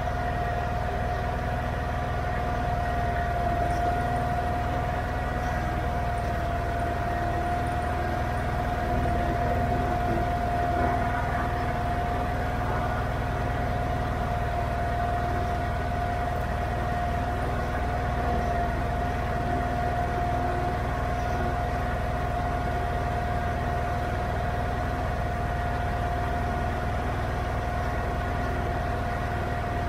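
Allis-Chalmers 917 Hydro garden tractor engine running steadily while the tractor drives along, with a steady high whine over it.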